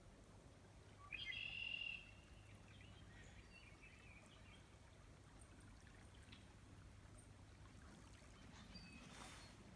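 Quiet riverside ambience with a faint steady hiss. About a second in comes one bird call lasting just under a second, followed by a few fainter chirps.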